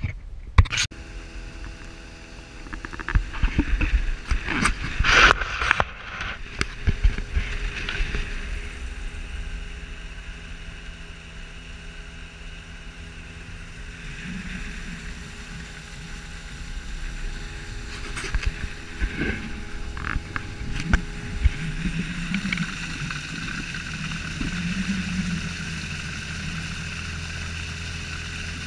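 A motor running with a steady low hum, with scattered knocks and clatter over it, most of them in the first several seconds.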